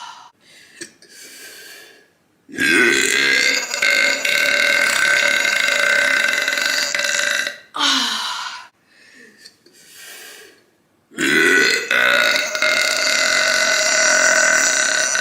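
A woman's long, loud burps, brought up by gas from chugging seltzer: two drawn-out belches, the first starting about two and a half seconds in and lasting about five seconds, the second starting about eleven seconds in and lasting about four. Each opens with a low rising pitch, then holds steady.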